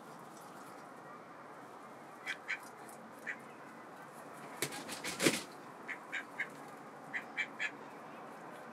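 White domestic ducks giving short, soft quacks in little groups of two or three. About five seconds in, a quick run of wing flaps comes with one louder quack.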